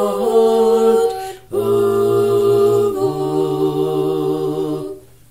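Small choir singing Orthodox liturgical chant a cappella in English, in long held chords. One phrase ends about a second and a half in, and after a brief breath another held chord follows and dies away near the end.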